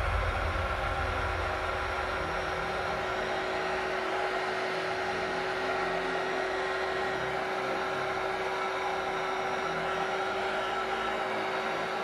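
Hair dryer running steadily, a constant rush of air over a steady motor hum, as used to blow epoxy resin foam into lacy cells.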